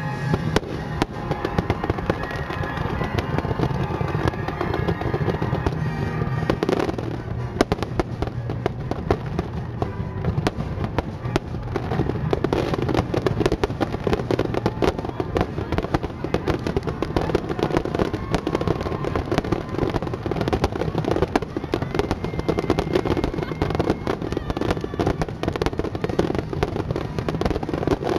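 Barrage of aerial firework shells bursting in rapid succession, bangs and crackling overlapping with hardly a gap; the bursts come even thicker from about seven seconds in.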